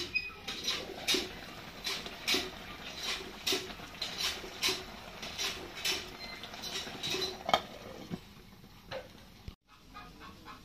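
Thick gravy simmering in an uncovered frying pan, its bubbles popping in a steady patter of about two or three pops a second that thins out near the end.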